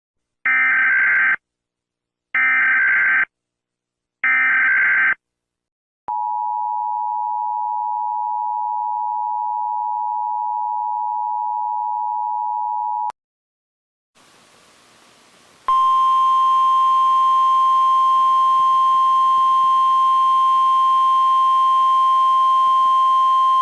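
Emergency Alert System tornado warning tones. Three short bursts of SAME header data come first, then the two-tone EAS attention signal holds steady for about seven seconds and cuts off. After about a second of silence and a moment of faint radio hiss, the steady single-pitch NOAA Weather Radio 1050 Hz warning alarm tone sounds.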